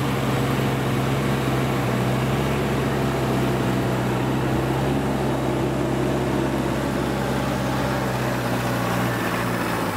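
Diesel engine of a rice combine harvester running steadily.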